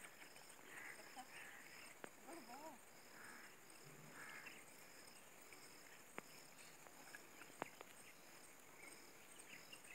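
Faint outdoor ambience of insects chirping steadily, a short high pulse about twice a second, with a couple of faint sharp clicks.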